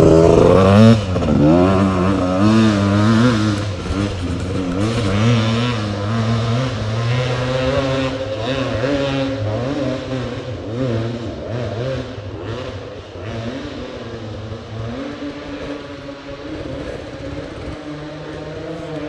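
Enduro dirt bike passing close and riding away, its engine revving up and down in quick waves, loudest about a second in and slowly fading. A second motorcycle engine runs steadily underneath.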